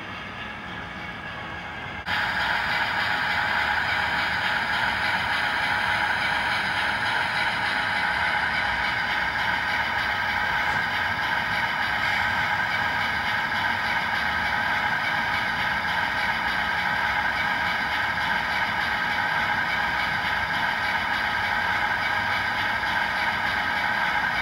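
Model Dongfeng 4 diesel locomotive running, a steady mechanical engine sound with several even tones that starts suddenly and loudly about two seconds in.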